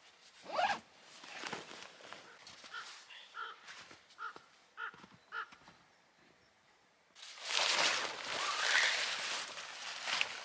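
A portable gas camping stove lit about seven seconds in, its burner hissing steadily and loudly. Before that, a string of five or six short high-pitched notes about half a second apart, with a few knocks of handling.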